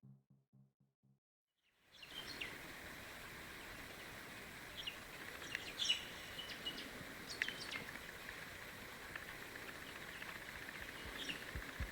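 Music fades out in the first second, then after a moment of silence a steady outdoor hiss comes in. Short bird chirps are scattered through it, several of them a second or more apart.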